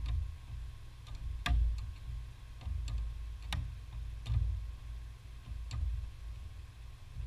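Ratchet wrench turning a nut at the brake master cylinder, giving single sharp clicks every second or so over a low hum.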